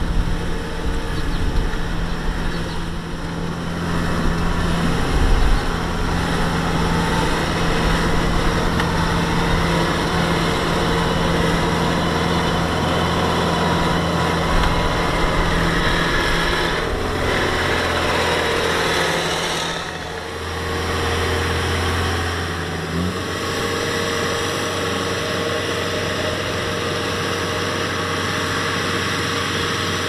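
Kubota DC-70 combine harvester's diesel engine running steadily as the machine travels on its tracks, a steady engine hum under broad mechanical noise. About two-thirds of the way through the sound dips briefly, then settles at a slightly different pitch.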